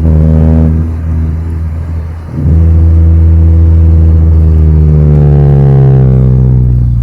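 Chevrolet Astra 2.0 four-cylinder running through a straight-pipe exhaust with no muffler, pulled hard under acceleration. It eases off about a second in, pulls hard again from about two and a half seconds and drops back near the end.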